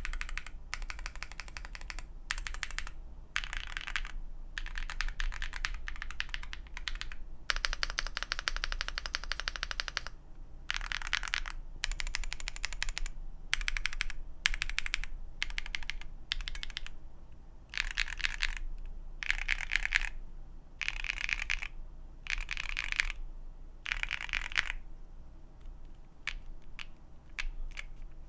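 Typing on an Akko MOD006 custom mechanical keyboard with Green Jacket linear switches on a polycarbonate plate and PBT doubleshot keycaps: rapid key clacks in runs. There is one fast unbroken run about a third of the way in, then short separate clusters of keystrokes with pauses between them.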